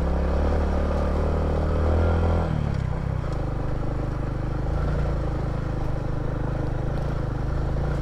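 Three-wheeled motorcycle's engine running while riding. The revs drop about two and a half seconds in, then hold steady at a lower pitch.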